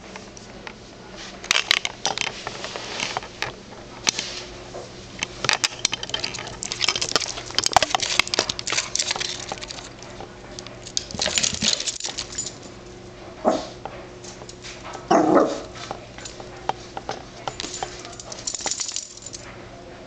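A dog pushing at a plastic pet-door flap with a pine cone jammed in the opening: repeated clacks and rattles of the flap in its frame and scraping of the cone, with two short dog cries about two-thirds of the way through.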